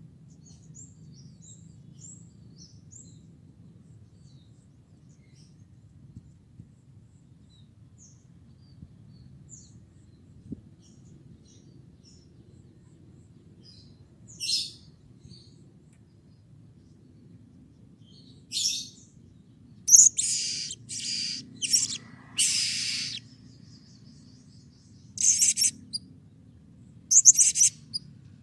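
Blue-crowned hanging parrot (serindit) calling with sharp, high-pitched calls. It gives a few faint chirps at first, then loud single calls from about halfway, and quick runs of several loud calls near the end.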